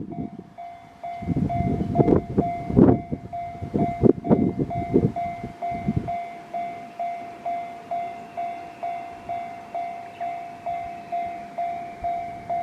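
Japanese level-crossing alarm ringing, a pulsing bell tone about twice a second. For the first six seconds or so, a DE10 diesel-hydraulic locomotive running on its own passes over the crossing, its wheels clattering over the rail joints. After that only the crossing alarm is left.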